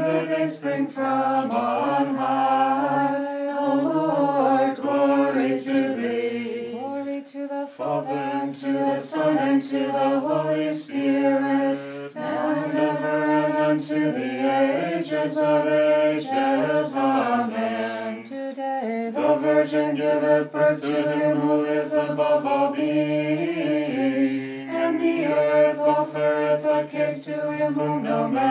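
Unaccompanied voices singing a Znamenny-chant Nativity carol in English, holding mostly level notes in long phrases with brief pauses between them.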